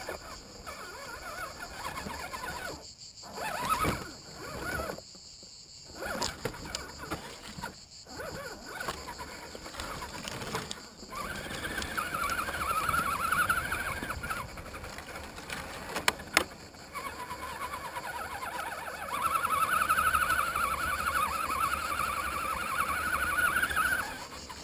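Electric motor and geared drivetrain of an Axial SCX10 1/10-scale RC crawler whining under throttle, picked up by a camera mounted on the crawler. The whine wavers with load, comes in spurts with short gaps early on, and swells twice, loudest near the end before cutting off. A sharp click sounds about two-thirds of the way in.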